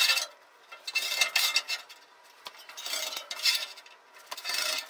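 A metal scribe scratching layout lines into a steel table top along a drywall square: repeated scraping strokes, about one a second.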